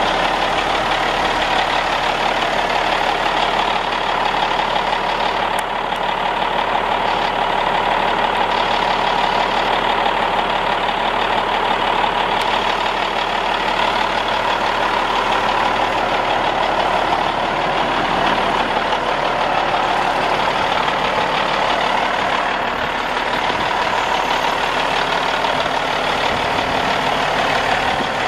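A CAT 980C wheel loader's six-cylinder diesel engine idling steadily just after a cold start.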